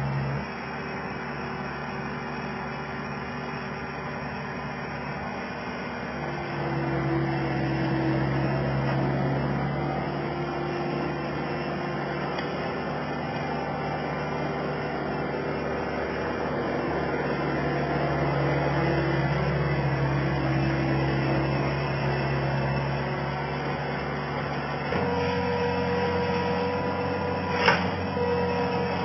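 Skid steer engine running steadily while the machine works, growing louder about six seconds in. Near the end its note changes abruptly, and there is one sharp click.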